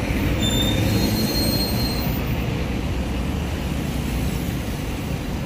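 Road traffic passing close by, with buses, a minibus and cars giving a steady low engine rumble. A thin, high squeal comes in about half a second in and fades out after a second and a half or so.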